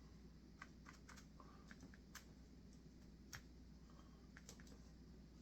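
Near silence with about a dozen faint, scattered light taps and clicks: handling of the gun and paint sponge while dabbing on camouflage paint.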